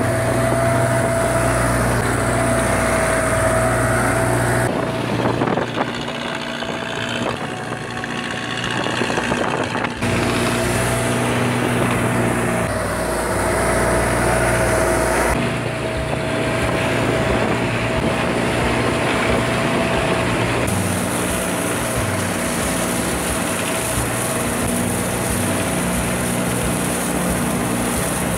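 A boat's engine running steadily with a constant hum, heard on board, with water hissing along the hull; the sound jumps abruptly every few seconds where short clips are cut together.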